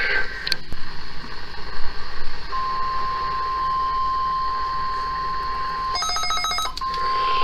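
Weather radio alert tone: a steady single pitch just above 1 kHz, the 1050 Hz NOAA Weather Radio warning alarm tone, over radio hiss, starting about two and a half seconds in. About six seconds in it is broken for under a second by a burst of rapid buzzing pulses, then the tone resumes.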